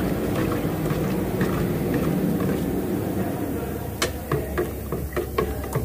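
A steady low rumble with a run of light clicks and taps from about four seconds in, as matte clear coat thinned with thinner is stirred and checked for thickness in its mixing container.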